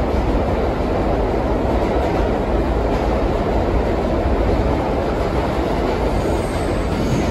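Vintage R9 subway car running along the track, heard from inside the car as a loud, steady rumble. A faint high squeal comes in near the end.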